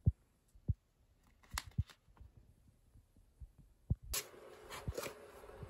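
Handling noise: a few soft low thumps and faint clicks as a plastic pump bottle and a packet are held and shifted in the hand. About four seconds in, a steady hiss with a faint hum starts abruptly.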